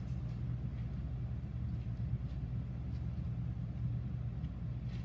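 Steady low background hum or rumble from room machinery, even throughout with no changes.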